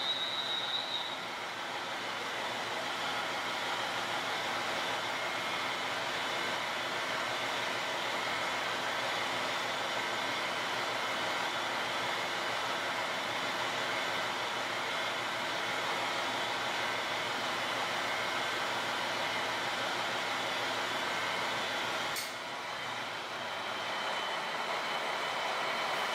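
JR Shikoku Kiha 32 diesel railcar standing at the platform with its diesel engine idling: a steady hum made up of several held tones. A brief high-pitched squeal sounds right at the start, and a single click comes about 22 seconds in.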